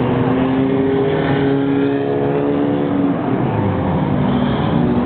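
Race car engines running at speed during a short-track race. A steady engine note holds for the first three seconds or so, then the engine sound shifts.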